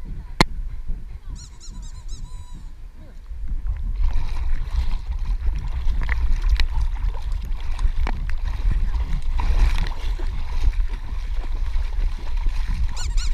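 A dog paddling through creek water, heard from a camera on its back: water sloshing and splashing against the housing over a low rumble. It gets louder about four seconds in, with many small splashes.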